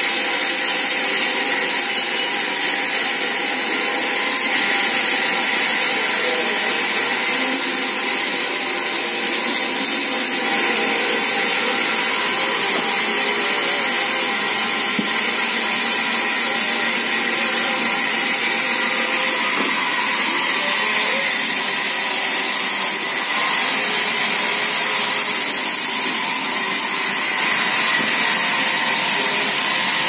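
Large sawmill band saw running steadily as a log is fed through its blade, cutting it into slabs.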